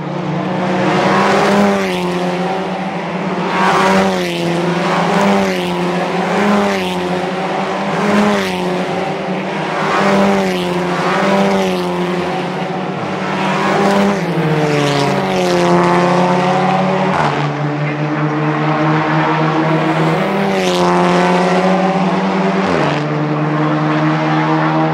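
Audi Sport TT Cup race cars' turbocharged 2.0-litre four-cylinder engines running hard on track, the engine pitch rising and falling over and over, with sudden drops at gear changes.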